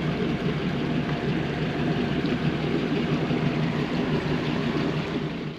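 A boat's engine running steadily while underway, with a hum of water and wind noise over it.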